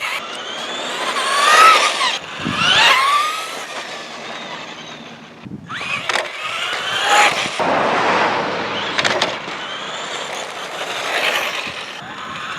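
Traxxas Stampede 2WD RC truck's brushed electric motor whining up and down in pitch as it accelerates and slows, with its street tires rolling on pavement. The sound drops out briefly a little before halfway.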